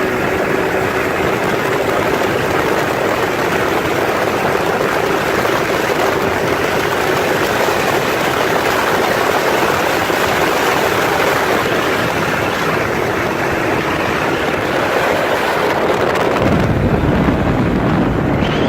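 Can-Am Maverick X3 RS side-by-side at full throttle during a drag run, its turbocharged three-cylinder engine buried under a loud, steady rush of wind and rumble on the microphone. About two seconds from the end the low rumble changes as the run ends.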